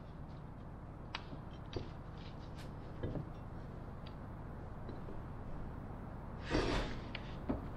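Small tools and tubing pieces being handled on a wooden workbench: a few light clicks and taps, then a short scrape about six and a half seconds in, over a steady low hum.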